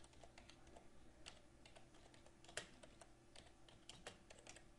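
Typing on a computer keyboard: a run of faint, irregular keystrokes, with one louder key press about two and a half seconds in, over a faint steady hum.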